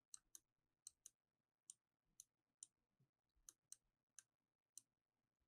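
Faint, irregular clicks of a computer mouse and keyboard, about a dozen, several coming in quick pairs.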